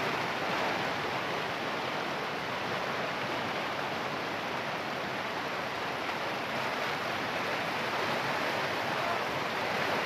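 Fast mountain stream rushing over rocks as close whitewater, a steady unbroken roar.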